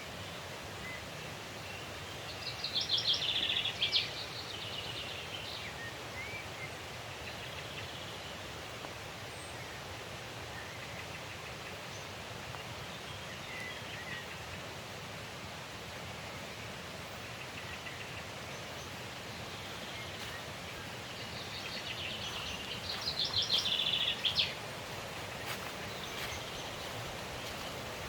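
A songbird sings a short, fast trilled phrase twice, about twenty seconds apart, over a steady rush of a forest stream.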